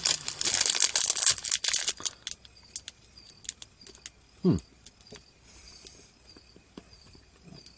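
Candy-bar wrapper crinkling and tearing open for about the first two seconds. Then quieter mouth sounds of a bite and chewing, with a short falling hum about four and a half seconds in.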